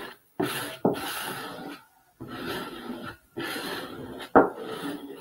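A plastic squeegee scraping in repeated strokes over decoupage paper laid on window glass, smoothing the paper flat. There are about five strokes, with a sharp knock about four seconds in that is the loudest sound.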